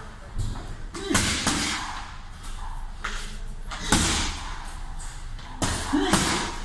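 Punches landing on a hanging heavy punching bag: about seven sharp smacks at an uneven pace, some in quick pairs.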